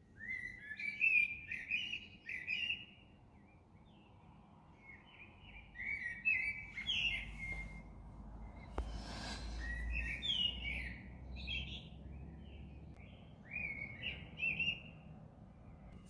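A songbird singing its dawn song in short warbling phrases, repeated four times with pauses between. About halfway through, a low rumble swells under the song, with a sharp click and a brief hiss about nine seconds in.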